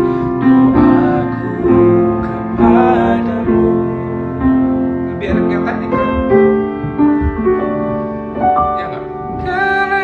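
A Christian worship song on piano, with a man's voice singing over the held piano notes.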